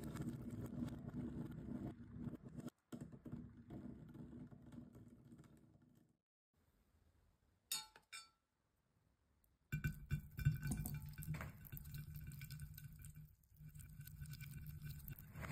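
Many small water beads (orbeez) pouring and clattering onto a plate, fading out after a few seconds. After a pause with a brief glass clink, large water beads tumble and clink into a glass dish.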